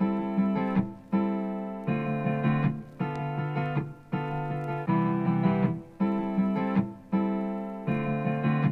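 Background music: a chord struck about once a second, each one fading away before the next.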